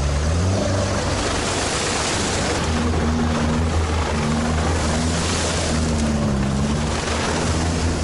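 All-terrain vehicle's engine running under load while driving, its pitch dipping and rising with the throttle over a steady rush of noise.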